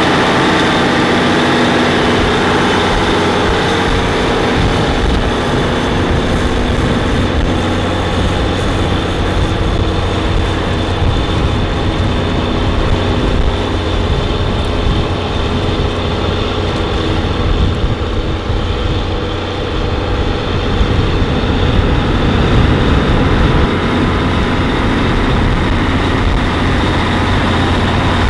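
Caterpillar 3412 V12 diesel engine of an 890 hp repowered four-wheel-drive tractor running steadily, a deep drone with a thin high whine above it.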